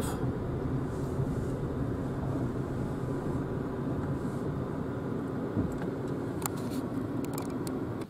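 Steady tyre, road and climate-fan noise inside a Renault Zoe electric car's cabin as it rolls slowly, with no engine sound; a few light clicks come near the end.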